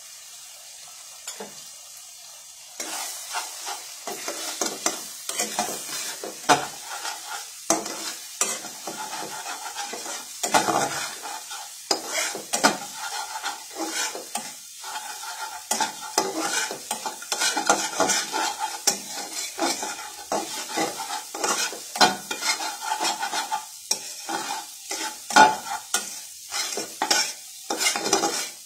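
Beaten eggs sizzling in butter in a metal frying pan. From about three seconds in, they are broken up and scrambled with a spatula that scrapes and knocks against the pan in quick, irregular strokes over the sizzle.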